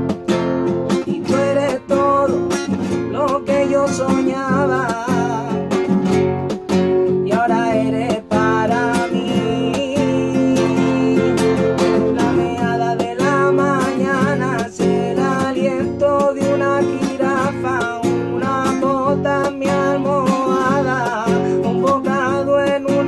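Acoustic guitar strummed steadily in a chord pattern, with a man singing over it from about four seconds in.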